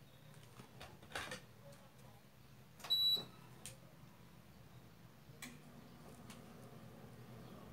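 Faint small clicks and rustles of pearl beads and nylon thread being handled as a knot is tied, over a low steady hum. About three seconds in comes one louder short click with a brief high ring.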